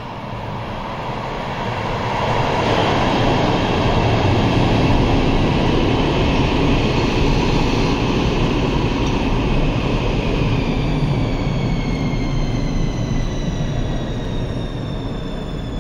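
Helsinki metro M300 train running into an underground station and braking. A rumble of wheels on rail builds over the first few seconds as it enters. From about ten seconds in, a falling electric whine sounds as it slows toward a stop.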